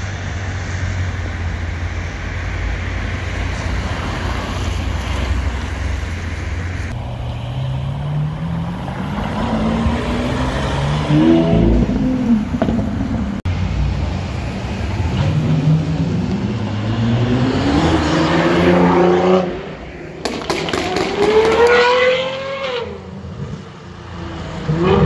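Lamborghini Aventador's V12 engine rumbling at low revs, then accelerating hard, its note rising in several steps as it shifts up. Near the end another sports car accelerates away, its engine note rising and then falling.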